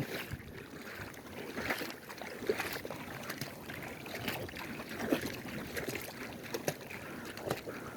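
Water lapping and splashing lightly, with scattered small clicks and knocks, just after a cast net has been thrown into the water.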